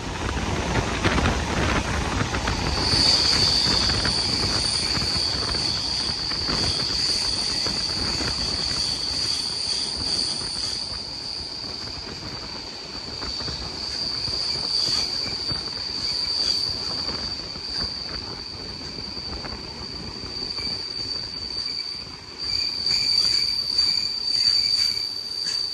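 Passenger train's wheels squealing, one steady high-pitched tone that sets in about three seconds in and holds, over the rumble of the wheels on the track as the train slows into a station.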